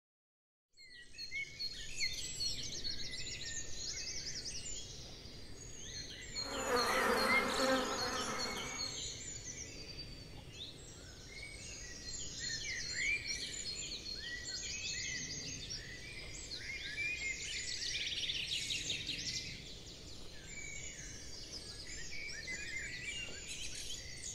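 Flying insect buzzing loudly past for about two seconds, a quarter of the way in, over a background of many small birds chirping.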